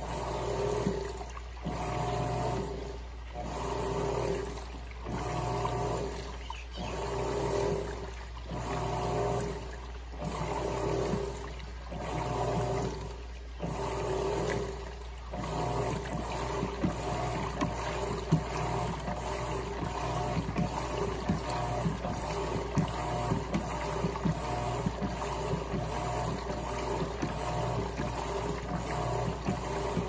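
Electrolux LTC15 top-loading washing machine agitating its load. The wash swishes in regular strokes, one about every second and a half to two seconds, over a low steady motor hum. About halfway through, the strokes give way to continuous churning.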